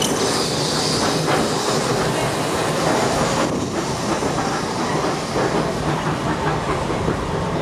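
Heritage tram running along its track, heard from on board an open car: a steady running noise of wheels on the rails.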